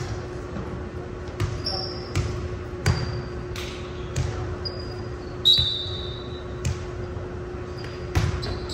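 A volleyball thudding on a hardwood gym floor several times, with sneakers squeaking between the thuds. A sharper smack comes near the end as the ball is struck for a jump serve. A steady low hum runs underneath.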